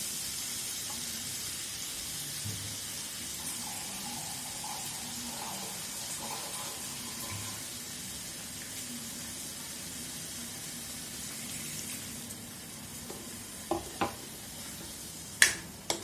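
Masala chicken frying in a steel kadai as tomato purée goes in, a steady sizzling hiss that slowly eases. Near the end a few sharp clinks of a steel spoon against the pan as stirring begins.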